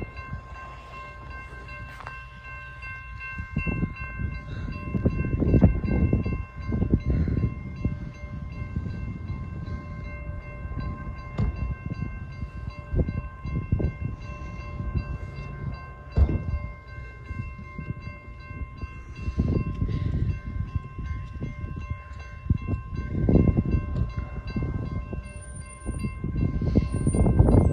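Gusts of wind buffeting the microphone in irregular low surges, over a steady ringing tone made of several pitches that holds throughout, with a few isolated clicks.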